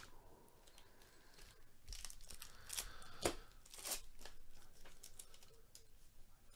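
Foil wrapper of a Panini Absolute Football trading card pack being torn open and crinkled, with a sharp rip a little after three seconds in.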